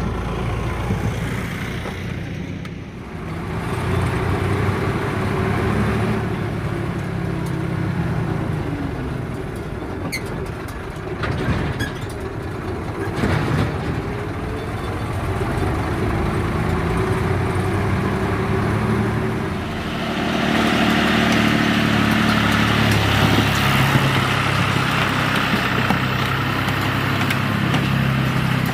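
Heavy diesel engine working under changing load, its pitch rising and falling, with a few knocks in the middle. It gets louder and brighter about two-thirds of the way through, as if revved up for a dig or lift.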